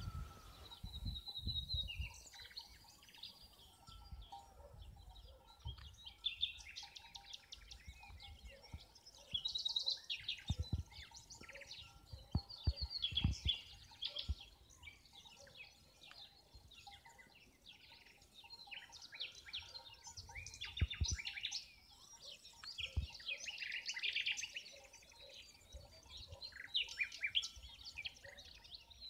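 Several songbirds chirping and trilling together in a morning chorus, with many overlapping high calls. Now and then a low thump or rumble of wind or handling sounds on the microphone.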